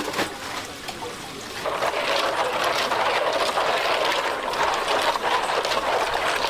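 Water splashing and rushing in a plastic basin as gloved hands wash shellfish in it, a steady sound from about two seconds in. Just before that, water drips and splashes off a mesh bag of scallops lifted out of a tank.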